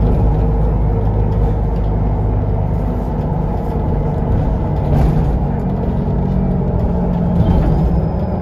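Cabin noise inside a Solaris Urbino 18 III articulated city bus under way: a steady low rumble of engine and road with a low hum.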